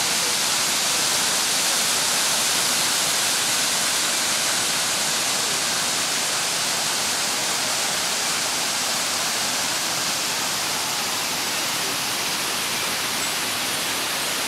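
A waterfall pouring over a stone weir into a pool, making a steady, unbroken rushing hiss of falling water.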